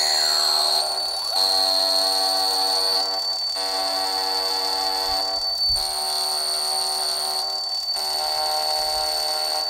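Korg littleBits Synth Kit playing a buzzy electronic drone over a steady high whine. A falling pitch sweep ends about a second in, then held clusters of tones shift to a new set every two seconds or so.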